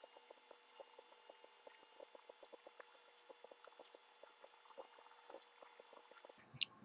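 Faint, quick wet ticking of a lip brush working red lipstick onto the lips, several small ticks a second over a faint steady hum.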